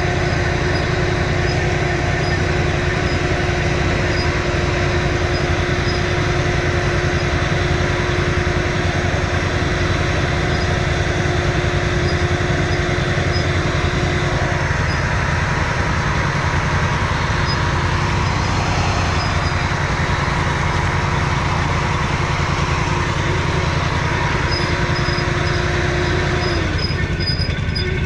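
Quad bike (ATV) engine running steadily while riding an off-road trail.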